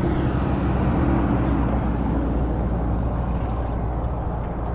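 Steady wind rumble over the camera microphone while riding along a highway shoulder. A truck passes on the far side of the road, its sound fading over the first second or so.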